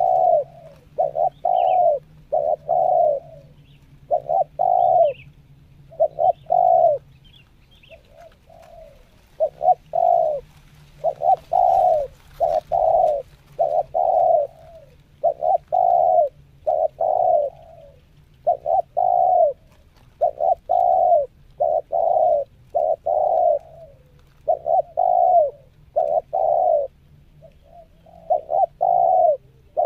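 Spotted dove cooing close by: a steady run of low coo notes in short groups of two or three, with brief pauses between the groups.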